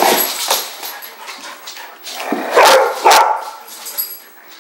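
Dogs barking in bursts while rough-housing in play, loudest about two and a half seconds in.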